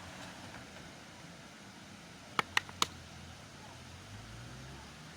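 Keys knocking against the bicycle: three quick sharp clicks about two and a half seconds in, over faint steady background noise.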